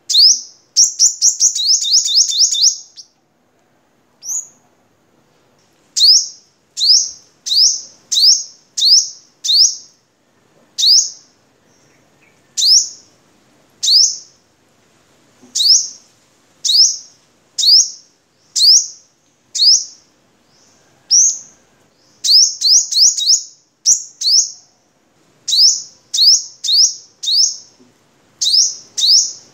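Sunbird singing: sharp, high chips repeated about once a second, with quick rattling runs of notes near the start and again about two-thirds of the way through.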